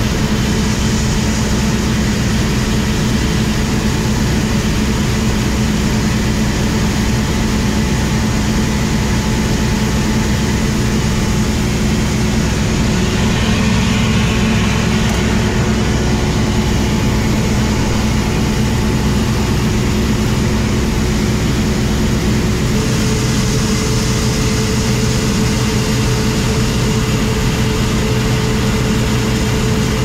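New Holland CX5090 combine harvester running steadily at harvest load, a loud continuous engine and machinery drone. About three-quarters of the way in, a new steady tone and more hiss join as the unloading auger starts pouring wheat into the trailer.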